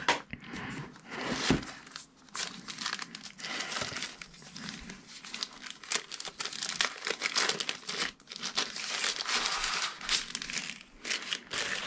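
Clear plastic packaging bag crinkling and rustling as hands handle it and pull it off a drone's remote controller, a continuous irregular crackle of small clicks.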